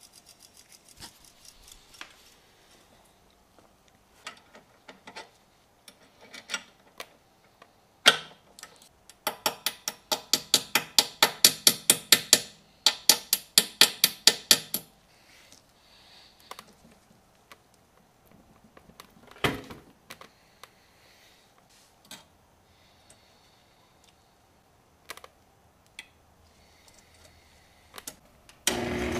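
Hand tools clinking and tapping on metal at a motorcycle's rear wheel, with scattered single clicks and, in the middle, a quick run of sharp taps, about four or five a second, lasting about six seconds. A single loud knock follows a few seconds later.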